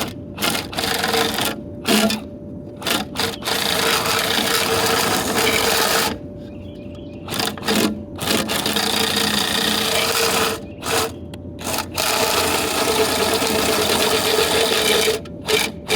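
Power drill spinning a rotary dryer-vent cleaning brush at the vent opening, run in bursts of one to three seconds with short pauses, the brush rasping and scraping against the vent hood and packed lint. A steady hum continues through the pauses.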